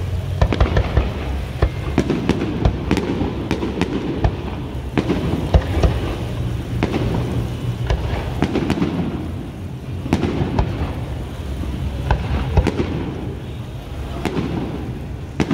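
Professional aerial fireworks shells bursting overhead in a rapid, continuous series of sharp bangs and booms over a low rumble.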